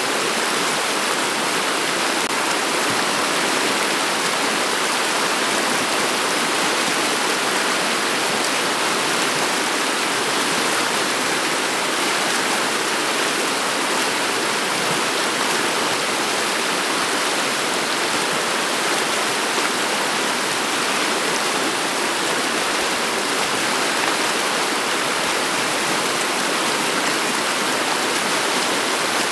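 Shallow river running over a bed of pebbles and stones: a steady rush of flowing water.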